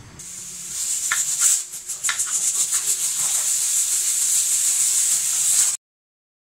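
Steady high-pitched steam hiss with a fast rattling flutter from a pressure cooker of dal and a pot of rice at a rolling boil on gas burners, with a few faint clicks in the first two seconds. It cuts off suddenly near the end.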